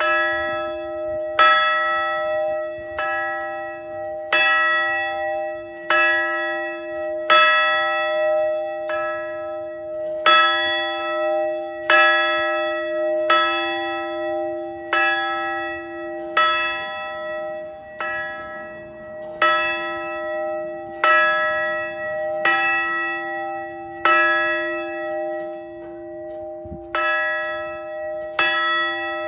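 A large outdoor bell tolled in a slow, steady series of single strokes, about one every second and a half, each ringing on into the next, with one stroke skipped near the end. It is rung once for each new graduate.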